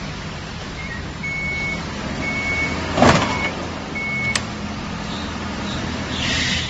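Pickup truck engine running low as it maneuvers, with a reversing beeper sounding short high beeps at uneven gaps. A loud sudden thump comes about three seconds in, a sharp click a little after four seconds, and a short hiss near the end.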